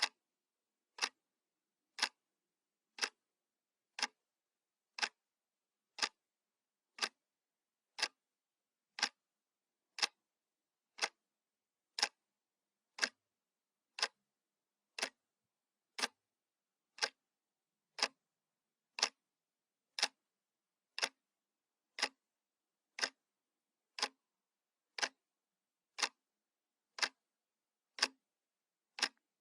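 Analog clock ticking once a second, each tick a short sharp click with silence between.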